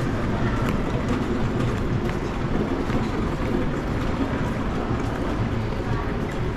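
Indoor shopping-mall ambience: a steady low rumble with faint scattered ticks and distant sounds above it.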